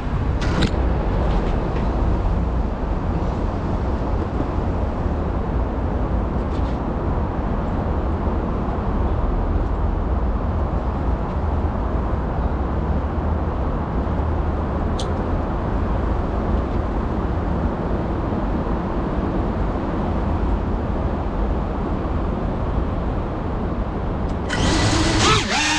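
A steady low rushing noise with no clear tone. Near the end the GEPRC Cinelog35 cinewhoop's motors spin up into a loud whine whose pitch bends as the drone throttles up and takes off.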